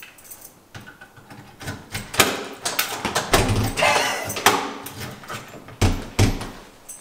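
A metal apartment door being unlocked and opened: keys and latch clicking and rattling, then a couple of heavy thumps of the door about six seconds in.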